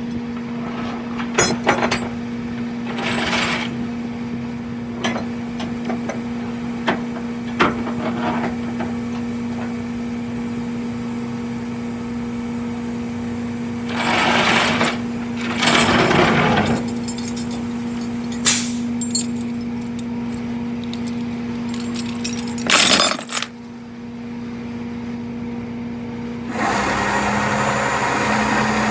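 A vehicle engine running with a steady, constant hum, with scattered knocks and rattles over it; near the end the sound grows louder and rougher.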